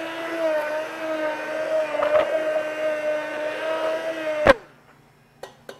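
Handheld immersion blender running steadily in a saucepan of soup, pureeing butter into it. The motor switches off with a click about four and a half seconds in, followed by a few light taps.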